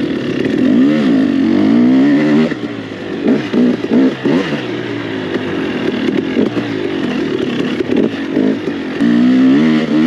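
KTM 300 EXC TPI's single-cylinder two-stroke engine under riding load, its revs rising and falling as the throttle is opened and shut. It is choppy with short drops through the middle and pulls steadily again near the end.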